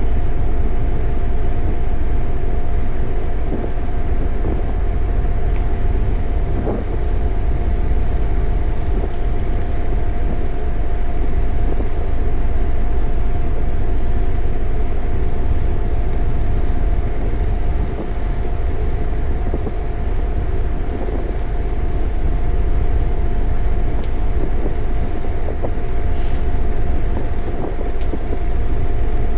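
Engine running steadily: a constant low rumble with a steady mid-pitched hum above it.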